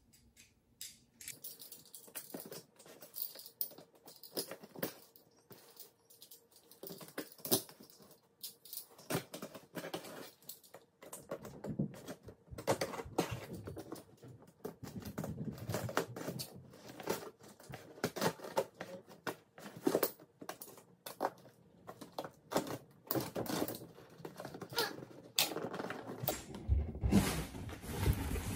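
Utility knife cutting along the packing tape on a cardboard parcel box: an irregular run of short scratching and scraping strokes. Near the end there are louder knocks and rustling as the box is handled.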